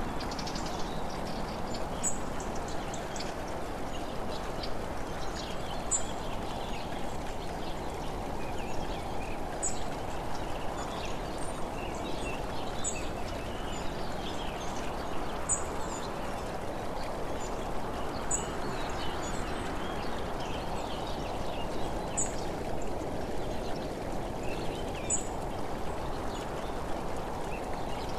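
Steady rushing noise of travel along a road, with faint chirps and a short high tick every two to four seconds.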